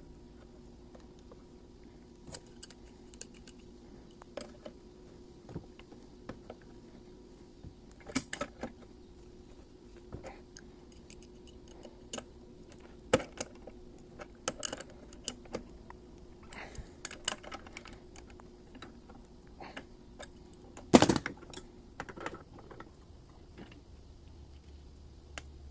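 Irregular small metallic clicks and taps of brass pipe fittings being threaded into a gas timer valve held in a bench vise and snugged with a wrench, with one louder knock about twenty-one seconds in. A faint steady hum runs underneath.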